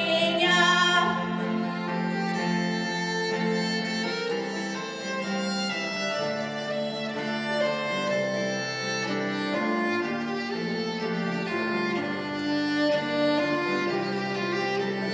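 Instrumental music of a song's backing track playing an interlude; a held sung note with vibrato fades out about a second in.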